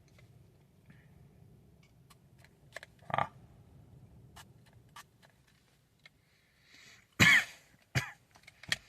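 A man coughing on a strong vape hit: one short cough about three seconds in, then a loud cough near the end followed by two shorter ones. Faint small clicks come in between.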